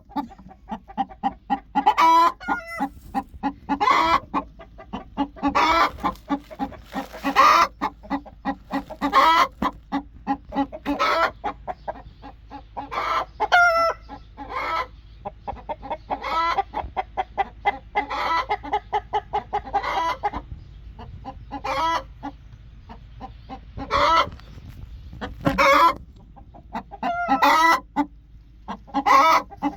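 Angry broody hen clucking: runs of short, quick clucks broken every second or two by louder, drawn-out squawking calls, the sound of a hen defending her nest.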